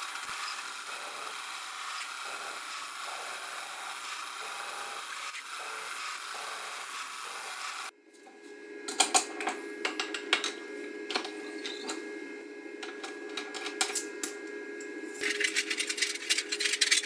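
Small CNC bench mill drilling an aluminium plate: a steady cutting noise with a soft pulse about once a second. About eight seconds in this gives way to a steady hum with sharp metallic clicks and clinks as the metal part and its clamps are handled.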